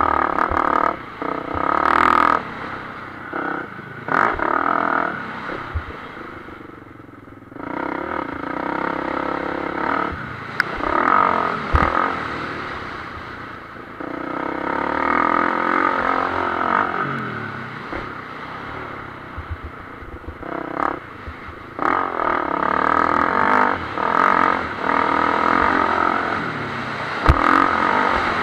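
Motocross bike engine heard from on the bike, revving hard and easing off again and again as the throttle is opened and shut, with a brief lull about seven seconds in. A few sharp knocks break in, one about twelve seconds in and another near the end.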